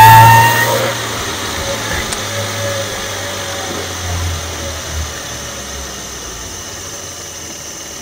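2016 Audi S4's supercharged 3.0-litre V6, stage 1 tuned, recorded from under the engine: the high supercharger whine is still rising as it begins, then it drops away within the first second. After that the engine sound and a fainter whine falling in pitch die down steadily as the revs fall.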